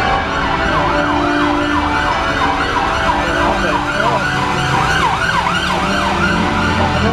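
An emergency vehicle's siren sounding a fast rising-and-falling yelp, about two to three sweeps a second, starting about a second in, over church bells ringing changes.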